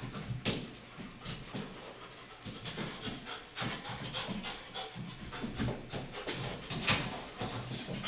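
Young Belgian Malinois panting in quick, irregular breaths, with one sharp tap about seven seconds in.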